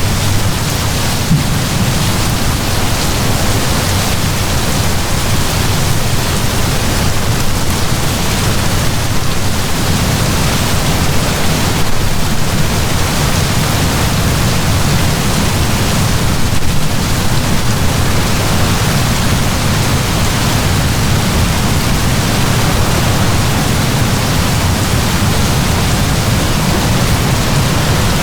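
Heavy downpour of rain: a steady, dense hiss with a low rumble underneath.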